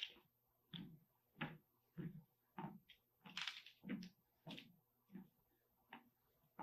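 Footsteps of a person walking across an instrumented lab floor, picked up by the floor's vibration sensors and played back as sound: a faint, regular series of dull knocks about every 0.6 s over a low steady hum.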